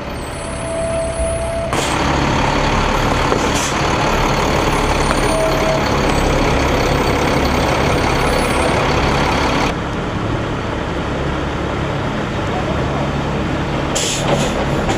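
Heavy truck engine idling with a steady low rumble. A loud hiss of air joins about two seconds in and cuts off abruptly near ten seconds.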